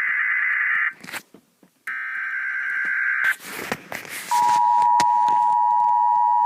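Emergency Alert System SAME header data bursts: one harsh buzzing burst ends about a second in and another runs from about two seconds to three and a half. About four seconds in, the steady two-tone EAS attention signal (853 and 960 Hz) starts and holds.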